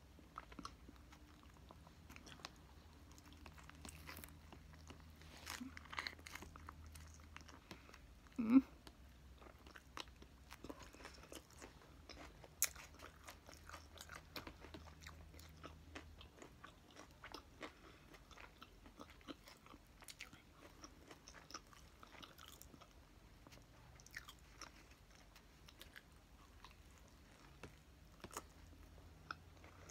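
Close-up mouth sounds of biting into and chewing a hamburger with lettuce: many soft, wet chewing clicks and light crunches, with one louder short sound about eight seconds in. A faint steady low hum runs underneath.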